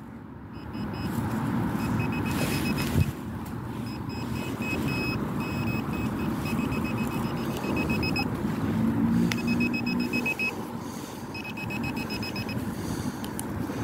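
Handheld metal-detecting pinpointer beeping in runs of rapid short beeps that stop and start several times as it is moved about in the hole, signalling a metal target in the soil. A steady low rumble runs underneath.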